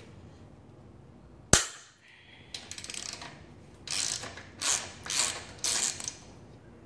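Socket ratchet turning the upper shock mount bolt on a dirt bike. A single sharp crack comes about a second and a half in as the tight bolt breaks loose. Then come several short bursts of rapid ratchet clicking as the handle is swung back and forth.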